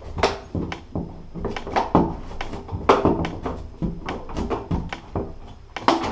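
Irregular clicks, knocks and thunks of a shower door's frame trim being handled and slid outward at the bottom so the door's magnetic catch closes better.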